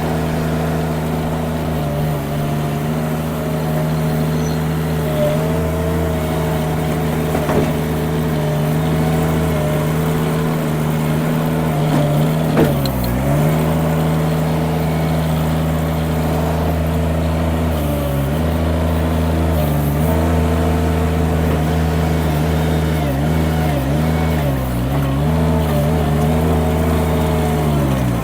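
Mini skid steer engine running steadily, its speed dipping briefly and recovering several times, mostly in the second half.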